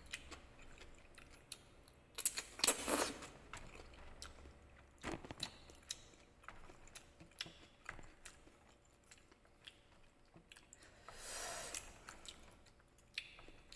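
Chewing of tteokbokki, the chewy Korean rice cakes, with many small clicks of wooden chopsticks against a ceramic bowl as they keep trying to grip the slippery rice cakes. Two louder rushes of noise come about two and a half seconds in and again about eleven seconds in.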